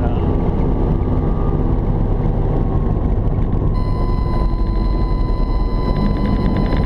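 Cabin noise inside a Robinson R44 helicopter: steady main-rotor and engine noise. A steady high-pitched tone joins about four seconds in.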